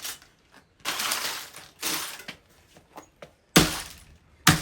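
A laptop being smashed apart: sharp blows about once a second, each with cracking and clattering of breaking plastic and parts. The last two blows are heavier, with a deeper thud.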